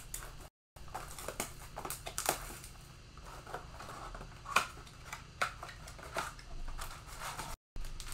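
Trading-card packs being handled by hand: foil wrappers crinkling and rustling, with scattered light taps and clicks. The audio cuts out completely twice for a fraction of a second.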